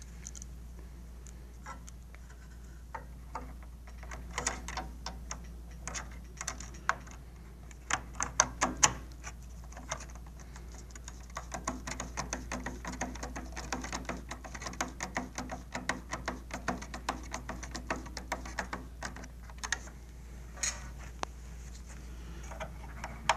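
A hand screwdriver driving a screw into a solar panel's plastic mounting bracket on a metal tower frame. It makes a series of small clicks and taps, with a few louder knocks about eight seconds in, then a steady run of rapid clicks.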